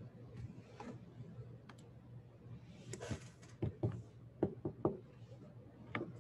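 Scattered clicks and knocks of objects being handled at a desk, with a short rustle about three seconds in and a cluster of sharp knocks a second later, over a low steady hum.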